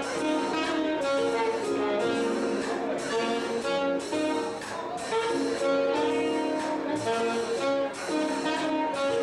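Live jazz combo: saxophone and trumpet playing a melody together in held, phrased notes, backed by keyboard, upright bass and drums.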